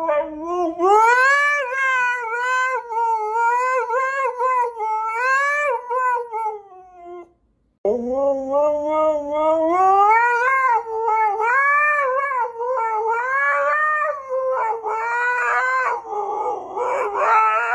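A pet's two long, wavering howls, split by a short break, each held for several seconds with the pitch sliding up and down.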